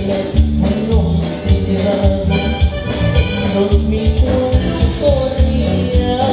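Live band playing Latin dance music, with a steady beat, a repeating bass line and a melody on top.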